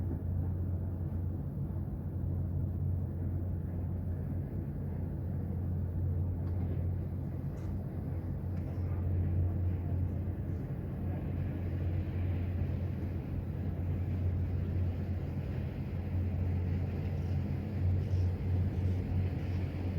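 A steady low rumble with an even hum underneath, getting slightly louder near the end.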